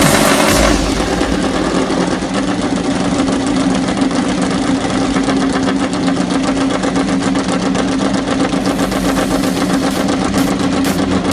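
Honda RC213V MotoGP race bike's V4 engine idling steadily.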